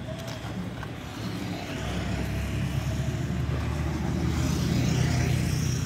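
A motor vehicle's engine running close by: a steady low hum that comes in about two seconds in and grows louder.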